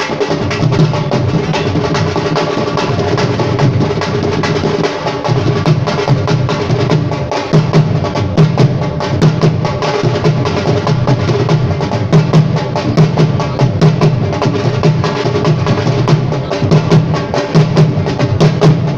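Instrumental music led by fast, dense drumming with a steady pounding beat, over sustained instrument tones.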